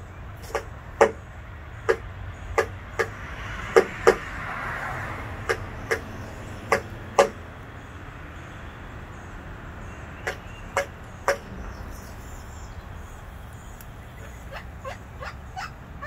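Pileated woodpecker pecking at a house window: single sharp knocks of its bill on the glass and frame, in irregular runs of a few strikes with pauses between. The bird is striking at its own reflection in the glass.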